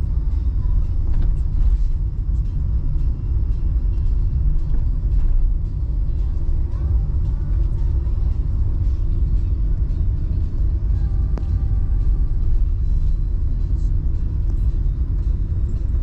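Car engine and road noise heard from inside the cabin while driving: a steady low rumble.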